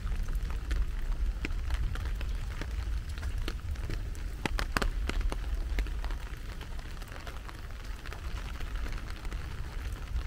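Rain falling, with many sharp drop taps over a steady patter; a cluster of louder taps comes about halfway through. A steady low rumble runs underneath.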